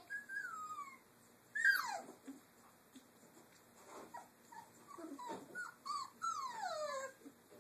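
Three-week-old Doberman puppies whining, a series of high cries that each slide down in pitch, the loudest about a second and a half in and several more close together near the end.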